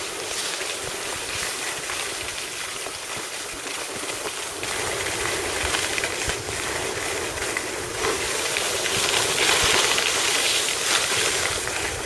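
Steady rushing hiss of gliding on cross-country skis: skis sliding over groomed snow, with wind across the microphone. It swells for a few seconds about eight seconds in.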